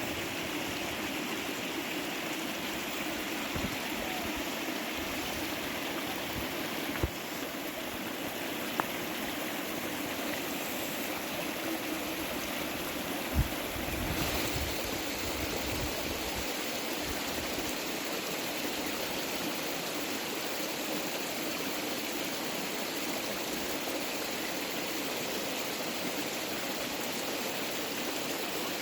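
Steady rush of running creek water, with a few brief soft thumps about seven, nine and thirteen seconds in.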